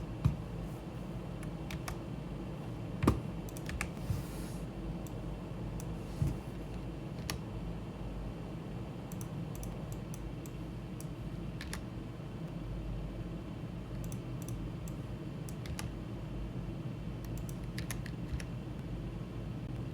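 Scattered computer keyboard and mouse clicks, one every second or few, over a steady low hum of room and computer noise.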